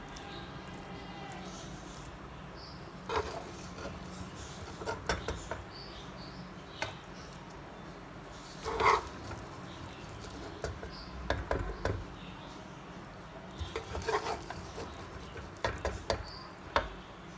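Kitchen utensils clinking and knocking against cookware, scattered irregular taps with one louder clack about nine seconds in, over a low steady hum.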